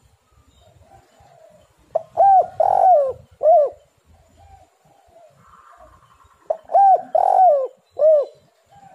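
Spotted dove cooing: two phrases about four and a half seconds apart, each a short lead-in note followed by three arched coos, the middle coo the longest and loudest.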